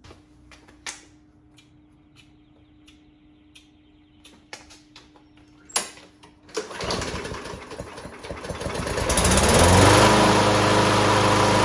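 A few faint clicks and knocks, then the Craftsman M100 push mower's 140 cc engine starts up and, after a few seconds of ragged running, settles into a steady run about nine seconds in. The engine runs now that the gunk has been cleared from its carburetor jets.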